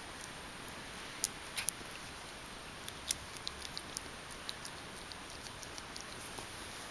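A ferret licking and nibbling at a person's fingers: scattered small, sharp clicks and ticks at an uneven pace over a steady hiss.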